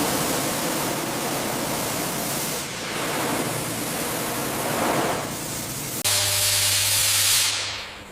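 Compressed-air blowgun hissing steadily as it blows sanding dust off bare sheet metal. About six seconds in, a low hum joins, and the hiss fades out near the end.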